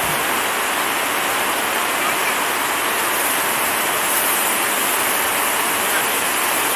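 A steady, even rushing hiss with no breaks or changes.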